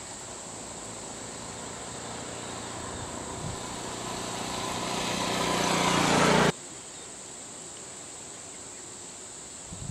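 A vehicle engine humming and growing steadily louder, cut off abruptly about six and a half seconds in, over a steady high-pitched insect buzz.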